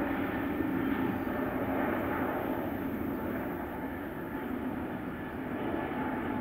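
Airbus A320neo's CFM LEAP-1A turbofan engines running at takeoff thrust during the takeoff roll, a steady jet roar that eases off slightly in loudness.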